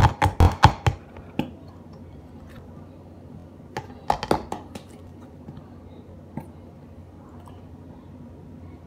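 Plastic bottle of Elmer's glitter glue being squeezed hard, giving a quick run of sharp sputters in the first second and another short run about four seconds in as glue and air are forced out of the nozzle.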